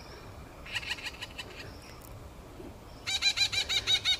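Red-breasted parakeet nestlings calling from inside their tree-hole nest. There is a brief, faint run of rapid high notes about a second in, then a louder run of about ten fast, high, repeated notes from about three seconds in.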